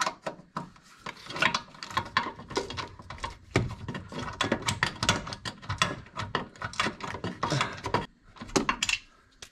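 Hand ratchet clicking in quick runs as a bolt is tightened, with short pauses between strokes.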